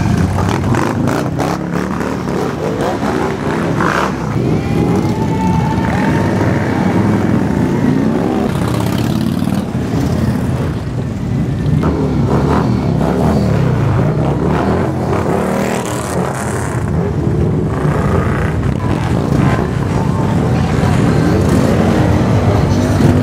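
Many Harley-Davidson V-twin motorcycle engines running as a column of touring bikes rides slowly past, making one loud, continuous rumble.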